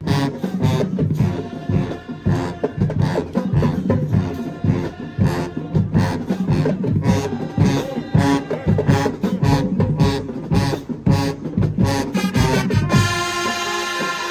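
Marching band playing: drums beating a steady rhythm under the brass, then about thirteen seconds in the horns and sousaphones hold one long chord.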